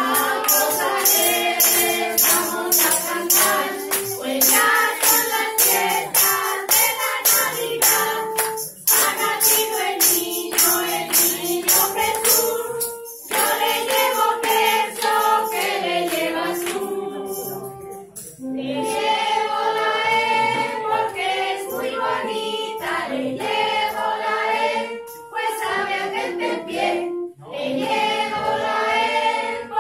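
A group of adults, mostly women, singing a song together, with steady rhythmic hand claps through roughly the first half.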